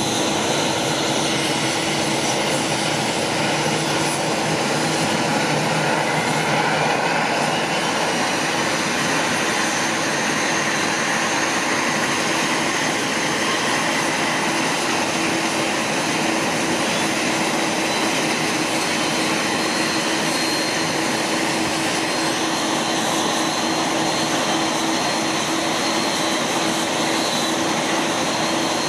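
De Havilland Canada Dash 8-300's Pratt & Whitney Canada PW123 turboprop engines idling on the ground: a loud, steady whine and rush with a held hum underneath. A higher whine climbs in pitch about six to eight seconds in.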